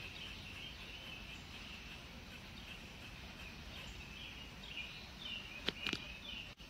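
Quiet outdoor garden ambience with faint high chirping repeating in the background. A few sharp clicks come near the end.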